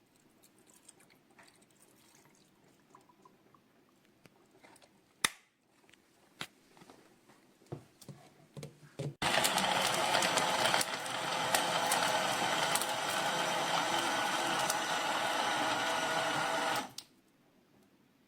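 Mexgcom 450 ml portable mini blender with 12 blades: a few clicks and knocks as it is handled, then its motor runs with a steady whir for about eight seconds and stops suddenly.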